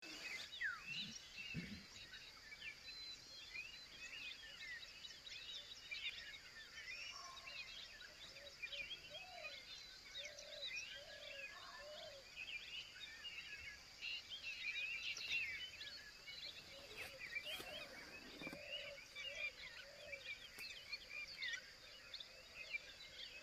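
Many small birds chirping and twittering, faint, over a steady high-pitched whine, with a few lower calls in the middle.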